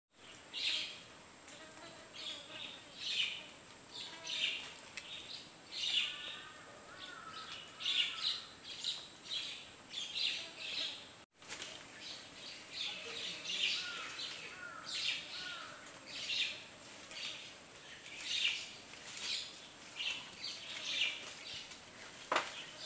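Tropical forest ambience: a steady high insect whine, short high chirps repeating about once a second, and now and then a few short whistled bird calls. The sound cuts out for an instant about halfway through, and there is one short knock near the end.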